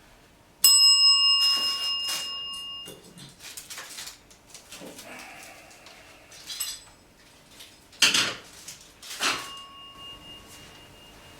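Metal cookware struck in a kitchen, ringing with a clear bell-like tone for about two seconds; smaller knocks and clatter follow, then a loud knock and a second, shorter ring near the end.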